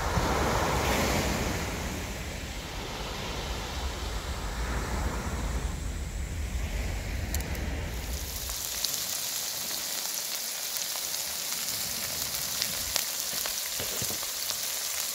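Small waves washing in over a sandy beach, then, about halfway through, pork belly sizzling on a hot griddle, with small pops.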